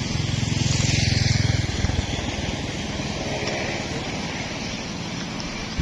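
A motor vehicle's engine passing close by, loudest in the first two seconds and then fading into steady background noise.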